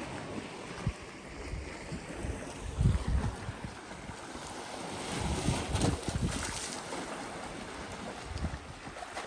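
Wind gusting across the microphone in low, irregular buffets, strongest about three and six seconds in, over a steady wash of sea against the shore.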